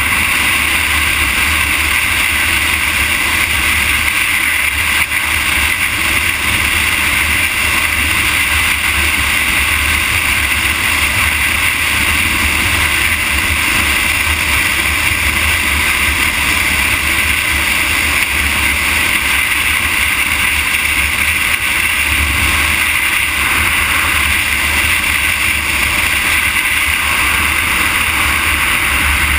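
Steady rush of wind and tyre noise on asphalt from travelling along a highway, a constant hiss over a low rumble, with no change in speed or pitch.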